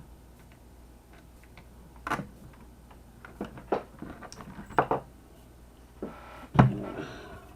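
Irregular clinks and knocks of small parts being handled while a screw is fitted to a fuel pump bracket, with the loudest knock about six and a half seconds in, followed by a brief ringing.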